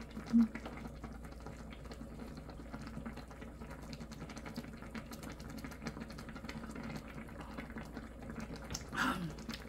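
Kimchi stew simmering in an electric hot pot: a quiet, steady bubbling hiss. Near the end there is one short slurp from a spoonful of hot broth.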